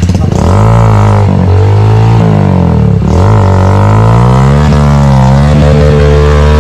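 Dirt bike engine revving hard under load on a steep climb, loud and close, its pitch dropping and rising again several times as the throttle is worked.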